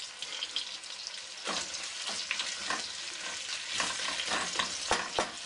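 Chopped onions and spring onions sizzling in hot oil in an enamel pot as they begin to sweat. From about a second and a half in, a wooden spoon stirs them, scraping and knocking against the pot.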